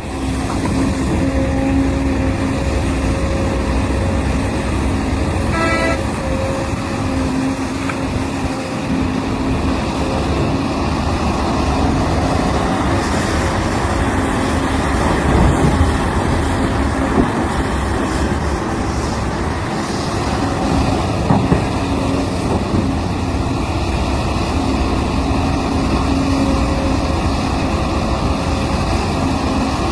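Heavy diesel machinery running steadily: a large mining excavator and haul trucks at work, with an engine hum that rises and falls. A short toot sounds about six seconds in.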